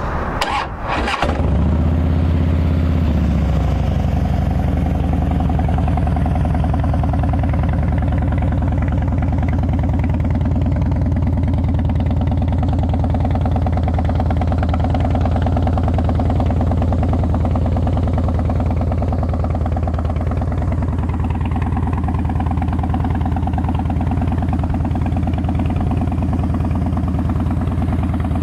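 2011 Harley-Davidson Fat Boy Lo's fuel-injected 96-cubic-inch V-twin starting through its Vance & Hines exhaust, catching about a second and a half in and running up briefly before settling into a steady idle.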